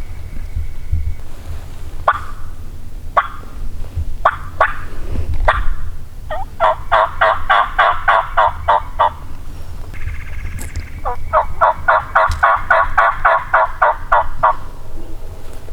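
Turkey yelping: a few single yelps, then two long runs of evenly spaced yelps at about four or five a second.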